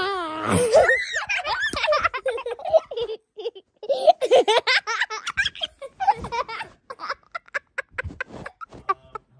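A young child laughing hard: loud belly laughs and giggles, which break into quick short bursts of laughter in the last few seconds.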